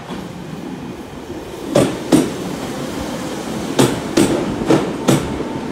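Class 150 diesel multiple unit's wheels knocking over rail joints as it runs slowly into the platform, in three pairs of clunks, the two knocks in each pair about half a second apart.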